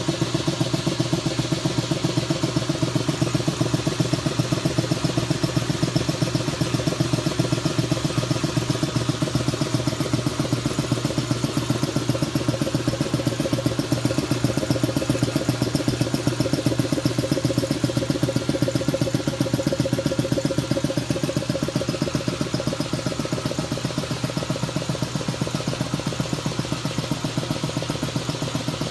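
Champion 80-gallon two-stage air compressor running: its R15 reciprocating pump, belt-driven by a 3 hp single-phase electric motor, pumps with a fast, even pulsing, building pressure in the tank while the gauge still reads low.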